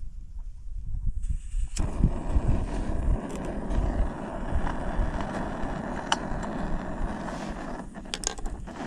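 Small gas canister camping stove burning with a steady hiss that starts about two seconds in. There is one sharp click in the middle and a few handling knocks near the end.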